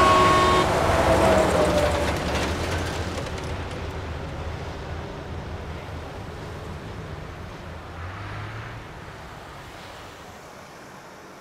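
A vehicle horn sounding and cutting off in the first second, its last tone sliding down in pitch. The rumble of the passing vehicle then fades away steadily.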